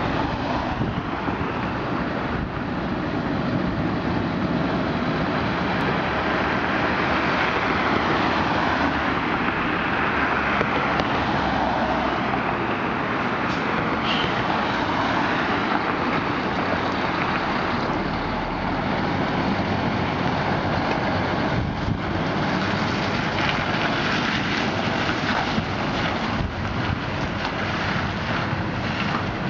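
Heavy tractor unit's diesel engine running under load as it hauls a low-loader trailer out and drives off, a steady noise that swells and shifts in pitch partway through.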